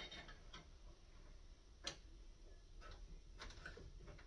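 A few faint, irregular clicks of a wrench turning against the pressure-gauge fitting as the gauge is tightened into a Crosman hand pump. Otherwise near silence.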